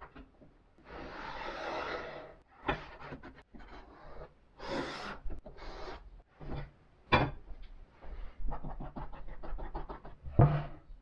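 Hand layout work on a plywood sheet: pencil and tape measure rubbing and scraping across the board, and a metal square and aluminium straightedge set down with several sharp knocks, the loudest about ten seconds in.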